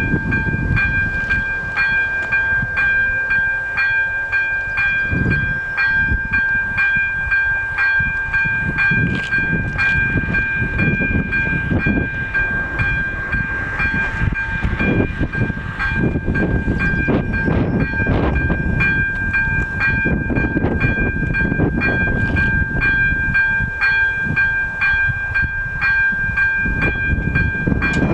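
Level-crossing electronic warning bell (AŽD ZV02) starting up and ringing on steadily: a high, rapidly repeated ringing tone that signals an approaching train. Wind buffets the microphone underneath.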